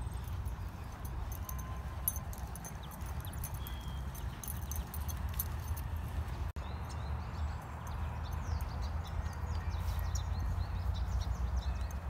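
Footsteps walking on a grass path, with a steady low rumble on the microphone. The sound cuts out for an instant a little past halfway.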